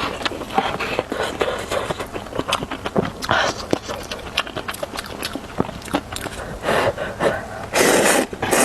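Close-miked eating of instant noodles: wet chewing and mouth clicks, broken by several slurps, the longest near the end.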